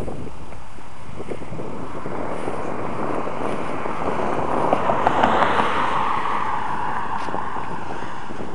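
Steady rushing vehicle noise with wind on the microphone, swelling from about three seconds in to a peak a little after the middle, with a few short clacks at the loudest point, then easing off near the end.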